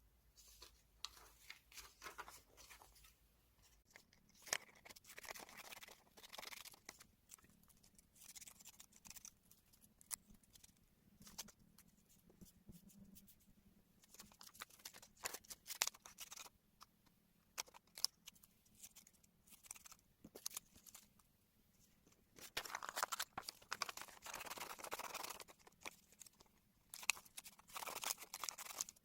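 Scissors snipping through magazine paper, with paper rustling and small handling clicks. Longer runs of paper noise come about two-thirds of the way through and again near the end.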